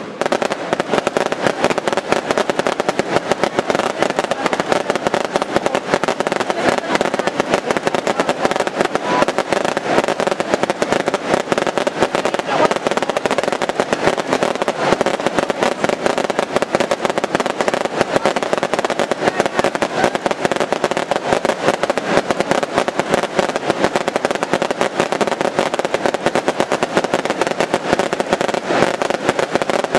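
Daylight fireworks barrage: a dense, continuous rattle of rapid firecracker bangs, so many reports that they run together without a break.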